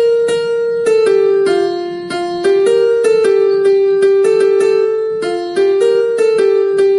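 A slow, sad ringtone melody on a piano-like keyboard. Its phrases of quick struck notes come about once a second, each note left to ring and fade.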